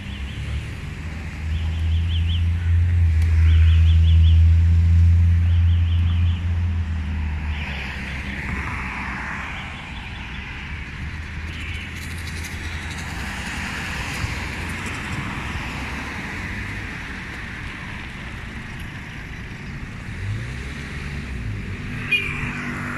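Street traffic. A motor vehicle's engine runs close by, loudest in the first several seconds and fading by about eight seconds in, then gives way to the steady hiss of passing cars.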